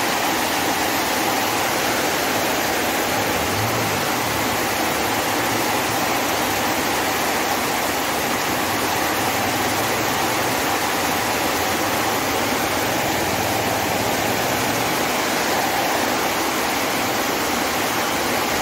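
Heavy rain pouring down steadily, with runoff water streaming across the flooded ground.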